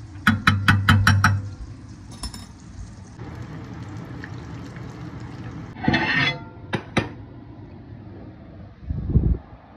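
Metal spoon tapping quickly against a glass bowl about six times, knocking off cooked rice. Later comes a short clatter with two sharp clicks, then a dull thump near the end.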